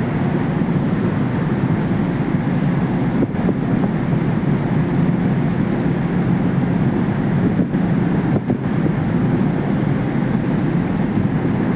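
Ferry's engines and machinery giving a steady low rumble as the ship manoeuvres slowly to berth.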